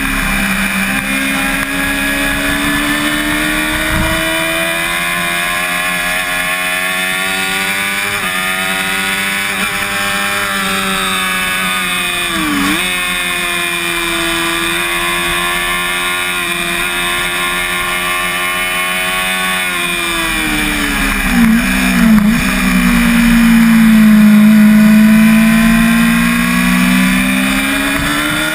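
Yamaha YZF-R6 600 cc inline-four engine at high revs under race throttle, its pitch sweeping up and down with brief sharp dips at gear changes about twelve seconds in and twice around twenty-two seconds. It grows louder for a few seconds near the end.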